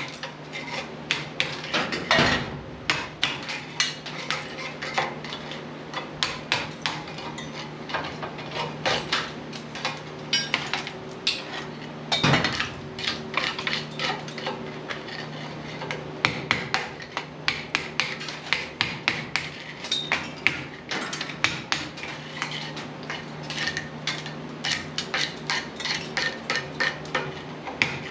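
Irregular metallic knocking and scraping, several sharp strikes a second, as slag is chipped and scraped off a freshly gas-torch-cut thick steel part. A faint steady hum runs underneath.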